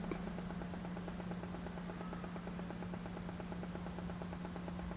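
Steady electrical hum with a fast, even buzz over it, unchanging throughout.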